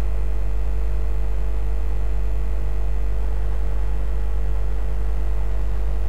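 Steady low hum with a faint hiss and a thin steady higher tone, unchanging throughout.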